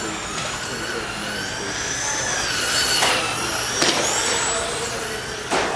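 Electric 1/10-scale RC buggies, including a Tamiya TRF 501X 4WD, whining at high pitch as they race. The pitch rises and falls with throttle. Two sharp knocks come near the end.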